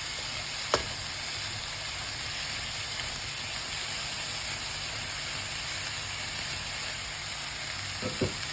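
Sliced Swiss brown mushrooms sizzling steadily in a hot pan as their water is cooked off, with a single sharp tap about a second in.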